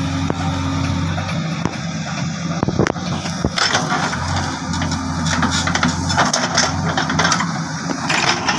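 JCB backhoe loader's diesel engine running steadily, with a couple of sharp knocks about three seconds in and a hissing, clattering noise from then on as the backhoe arm works.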